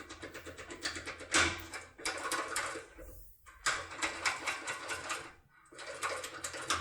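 Rapid metallic clicking and rattling of a foil impression tool being worked back and forth inside a Securemme K3 cylinder lock. It comes in several bursts of fast ticks with short pauses between them.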